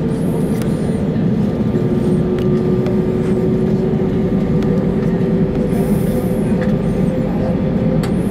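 Airbus A320 jet engines running, heard inside the cabin as a steady drone with a few steady hum tones over it; a further tone joins about two seconds in.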